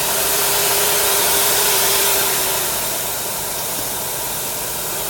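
Compressed air rushing from an open air valve and hose, blowing through the pipe to clear out dust: a loud, steady hiss, with a faint steady tone under it for the first two and a half seconds or so.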